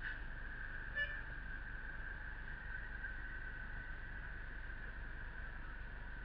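A steady high-pitched whine, with one short pitched toot about a second in.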